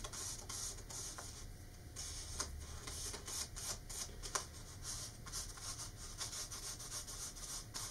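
Fingertips rubbing dried excess rubber cement off the surface of a rolled paper shroud: soft, scratchy strokes over the paper, repeating irregularly a few times a second.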